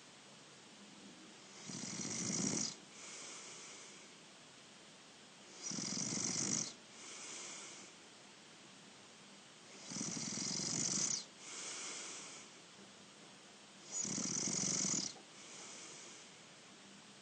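A sleeping person snoring. There are four loud, rough snores about four seconds apart, each followed by a softer breath.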